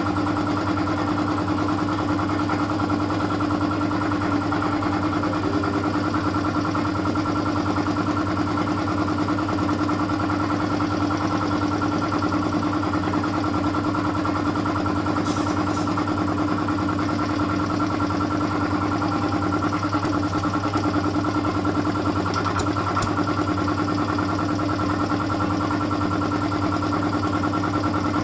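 A 2 hp air compressor running steadily, a constant mechanical drone with a steady hum.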